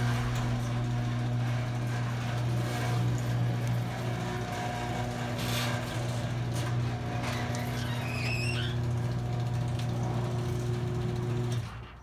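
Craftsman 1/2 hp chain-drive garage door opener running as it opens the door: a steady, even motor hum, a little bit loud, that stops suddenly near the end as the door reaches the fully open position.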